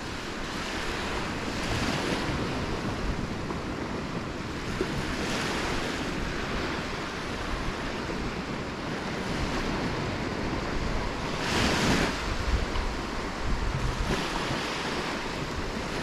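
Small shore-break waves breaking and washing up the sand, the surf swelling and easing every few seconds and loudest about three-quarters of the way through, with wind buffeting the microphone.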